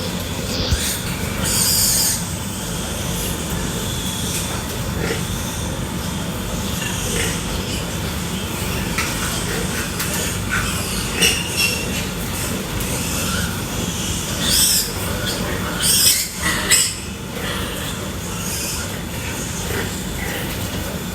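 Pigs squealing in short, shrill bursts, a few times and clustered near the end, over a steady low hum.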